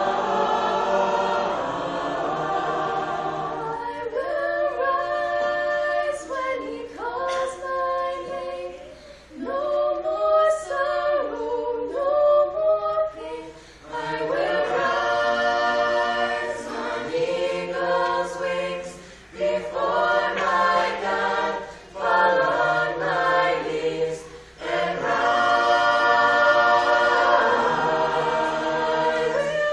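Mixed youth choir singing a cappella in harmony, with no instruments. The phrases break off in short pauses several times and end on a loud held chord near the end.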